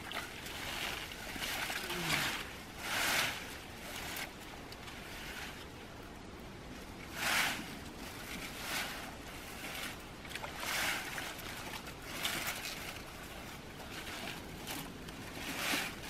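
Fine-mesh fishing net being hauled by hand through water and dense floating weeds: irregular swishing and sloshing strokes every second or two.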